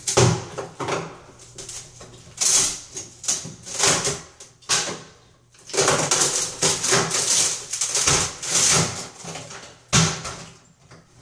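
Irregular bursts of scraping, cracking and clattering as the edges of a cut opening in a fiberglass tub surround and the wall behind it are broken and pulled away by hand around the shower valve pipes, with short pauses between bursts.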